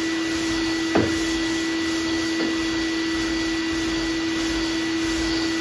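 Shop vacuum running steadily with a constant hum, drawing dust through the hose of a long hand sanding block. There is one short knock about a second in.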